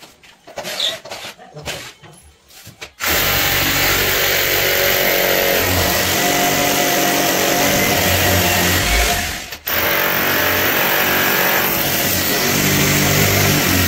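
Electric power tool starting up about three seconds in and running steadily, cutting out for a moment about nine and a half seconds in before running again, after a few light knocks.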